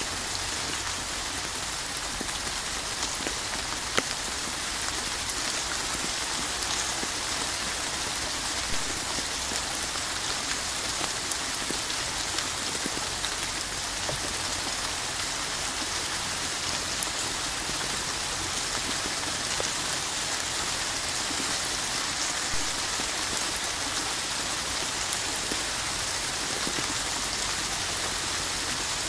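Steady rain falling: an even hiss, with scattered sharper drop taps, one a little louder about four seconds in.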